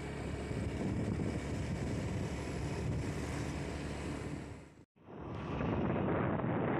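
Wind buffeting the microphone of a camera moving along the road, a steady rushing noise with a low rumble. About five seconds in it cuts out for a split second and returns duller.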